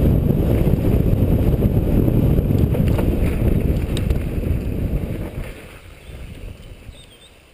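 Wind buffeting the microphone mixed with the rumble and rattle of a mountain bike riding fast down a dirt forest trail, with a couple of sharp knocks. It dies down about five seconds in.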